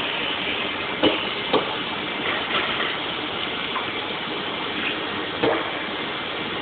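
Automated roller conveyor running as a black parts tray rides over its rollers and through a corner transfer unit: steady machine noise, with a few short sharp knocks about a second in, at about one and a half seconds and near five and a half seconds.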